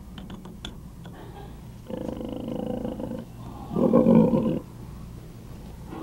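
A sow with her throat partially slit moaning as she lies dying: a drawn-out moan about two seconds in, then a shorter, louder one about four seconds in.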